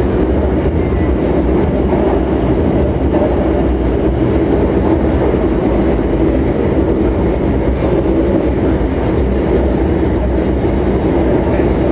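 Shanghai Metro Line 10 AC15 train running between stations, heard from inside the car: a steady rumble of wheels on rail and running gear.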